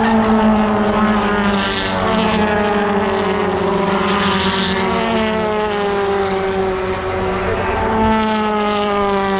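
BTCC touring cars' 2-litre turbocharged four-cylinder engines running hard past the trackside, the engine note falling steadily in pitch as the cars go by. A second engine note comes in higher about eight seconds in and falls again.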